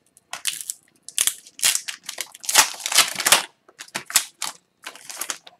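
Foil wrapper of an Upper Deck hockey card pack being torn open and crinkled by hand: a quick run of short, crisp rustles and crackles.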